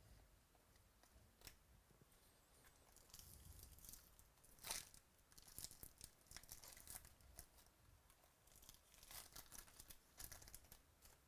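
Faint crinkling and tearing of foil trading-card pack wrappers being ripped open, in several crackly spells with a sharper rip about halfway through.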